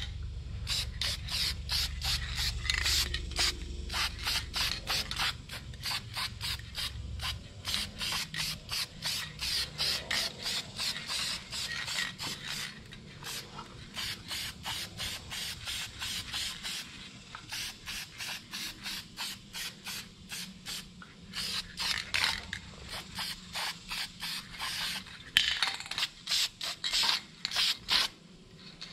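Duplicolor silver engine paint aerosol can spraying in short, rapid bursts of hiss, about two or three a second, with a couple of brief pauses, as a light coat goes onto an engine block.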